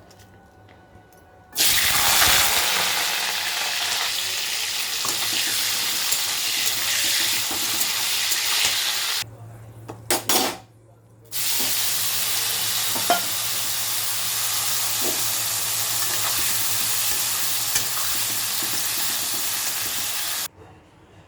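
Food sizzling in hot oil in a cooking pan, with stirring. The sizzle starts abruptly about a second and a half in and breaks off around nine seconds. A few clatters follow, then the sizzle resumes around eleven seconds and stops abruptly near the end.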